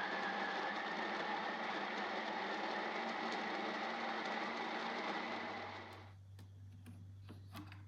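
A small electric appliance motor running steadily, then cutting off about six seconds in. A low hum and a few light clicks follow.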